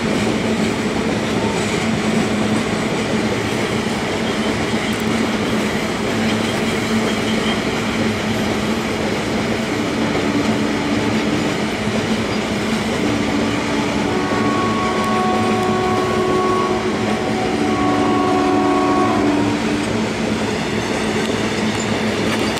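A long rake of BCNA covered goods wagons rolling past with a steady rumble and wheel clatter. About halfway through, a train horn sounds several blasts of one to two seconds each over the rolling noise.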